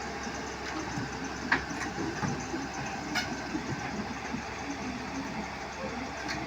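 Excavator engine running steadily while loading, with a few sharp knocks about a second and a half in, again around two and three seconds, and near the end.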